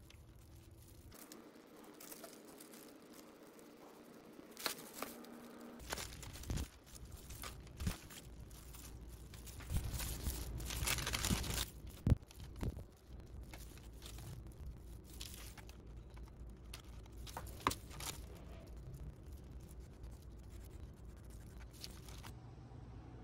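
Putty knife scraping as it spreads wood filler into a split wooden lid, with a plastic drop sheet crinkling under gloved hands and a few sharp clicks and knocks.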